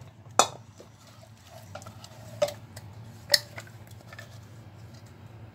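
Spatula scraping and tapping inside a stainless steel mixer-grinder jar as ground masala paste is scraped out, with three sharp clicks, the loudest a little over three seconds in.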